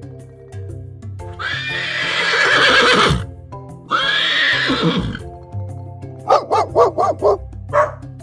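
Two horse whinnies, each a long neigh that falls in pitch at its end, followed from about six seconds in by a quick run of dog barks, over steady background music.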